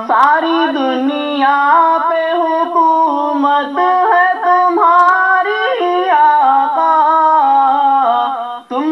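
A young man singing an Urdu naat with no instruments: a slow, ornamented line of long held notes stepping up and down, with a short break for breath just before the end. It is heard through a television speaker, thin and without bass.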